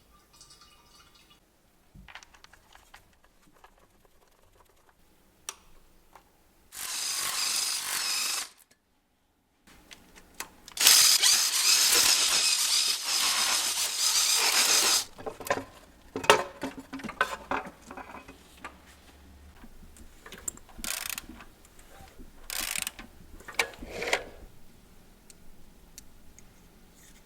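Mechanic's tools at work on engine fasteners: a power tool runs twice, briefly and then for about four seconds, followed by scattered ratchet clicks and metal tool knocks.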